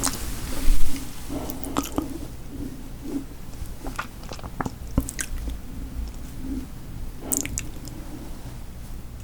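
Close-up eating sounds: chewing and biting with scattered wet mouth clicks. A loud low thump comes just under a second in.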